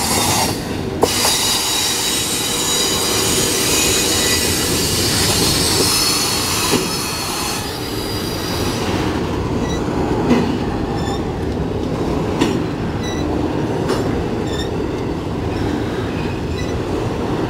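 Double-stack intermodal freight train rolling past, its steel wheels on the rails letting out a high squeal through the first half, then a steadier rumble with a sharp clack about every two seconds.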